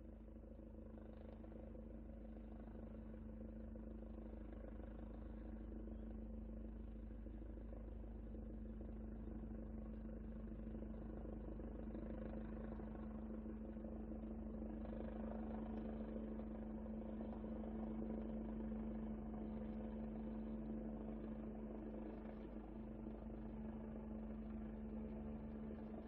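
Helicopter landing: a steady engine drone with a fast, low, regular rotor beat underneath, growing gradually louder to a peak about two-thirds of the way through, then easing slightly.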